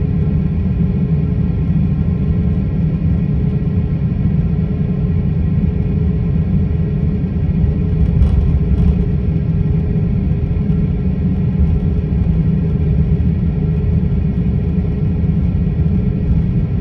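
Jet airliner cabin noise while taxiing: a steady low rumble from the engines at low power and the rolling gear, with a constant hum over it.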